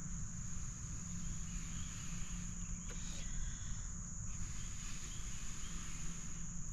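Steady insect chorus, a continuous high-pitched drone that holds without a break.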